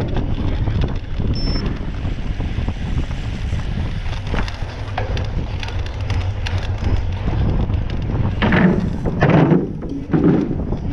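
Wind buffeting the microphone as a steady low rumble, with scattered light clicks and a few louder short bursts near the end.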